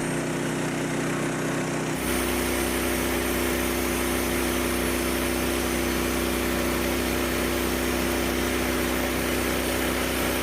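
Small gasoline engine of a portable sawmill running steadily at idle, with no cutting. Its sound changes abruptly about two seconds in.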